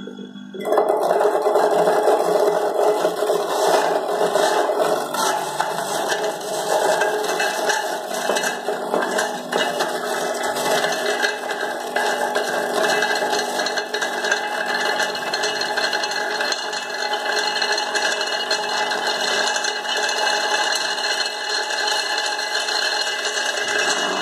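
Electric stainless-steel fruit juicer grinding amla (Indian gooseberries) pressed down its feed chute: a loud rattling, scraping grind that starts suddenly under a second in and carries on steadily over the motor's hum.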